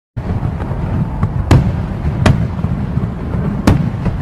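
Firecrackers going off: three loud sharp bangs with fainter pops between them, over a steady low rumble.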